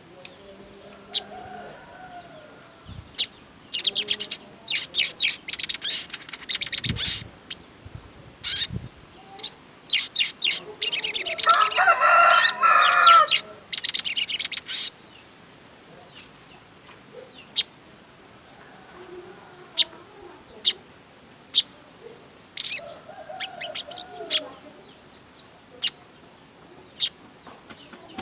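Sogon songbird singing a lively, varied song of sharp high chirps and fast trilled runs. The densest and loudest runs come about 4–7 s and 11–15 s in, with single chirps between.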